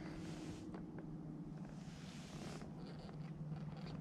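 Faint scratchy rustling from hands and clothing handling a small catch, in a few short stretches, over a steady low hum.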